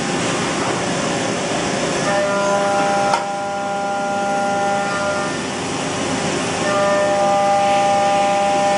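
Mazak Integrex-200IV ST CNC turning center running, a steady mechanical hum and hiss with a high motor whine of several steady tones. The whine comes in about two seconds in, drops out past the middle and returns near the end, with one sharp click a little after three seconds.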